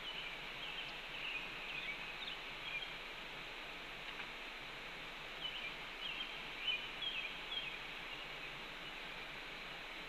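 Red-tailed hawk nestlings giving short high begging chirps while being fed, in two quick flurries, over a steady hiss.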